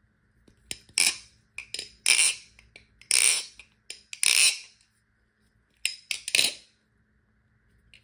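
Balisong (butterfly knife), a BRS Replicant clone with channel-construction handles, being flipped so that its metal handles and blade clack and rattle. The sharp metallic clacks come in quick bursts with short pauses and stop a little past two-thirds of the way through.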